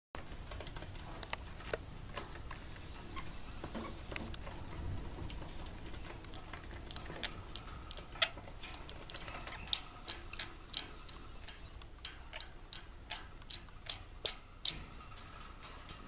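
Irregular light clicks and taps of a budgerigar's beak pecking at its plastic mirror toy, coming thicker in the second half.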